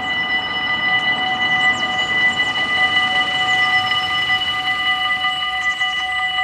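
Dutch level-crossing warning bells ringing steadily, a continuous multi-tone ring that signals an approaching train.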